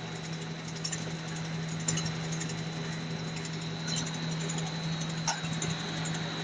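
Snack-pellet extruding line running: a steady machine hum with a thin high whine over it, and light scattered ticking from the pellets on the conveyor.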